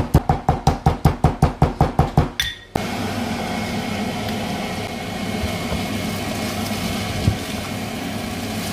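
Metal pestle pounding cardamom pods and cinnamon bark in a metal mortar, a quick even run of sharp strikes, about five a second, that stops abruptly about three seconds in. Then a steady low hum from the pot of meat cooking on the stove, with a single scrape of a stirring spoon near the end.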